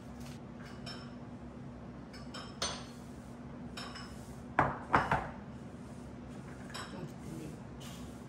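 Salad bowls and utensils clinking and knocking against each other and the stone countertop, with a cluster of three loud knocks about halfway through and lighter clinks before and after, over a steady low hum.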